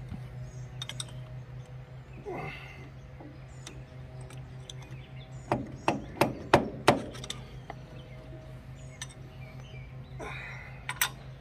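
Metal hand tools knocking and clinking on a tractor's starter motor as it is worked loose, with a few light clicks early on and a run of several sharp knocks about six to seven seconds in, over a steady low hum.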